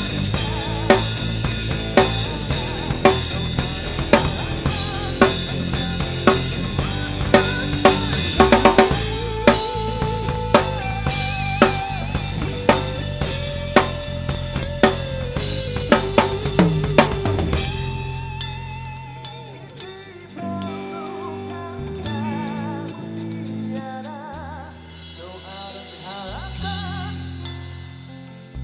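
Drum kit with kick, snare and cymbals played on a steady beat along to a recorded song, with a rapid fill about eight seconds in. About eighteen seconds in, the drumming stops and the song carries on more quietly with bass notes and a wavering melody.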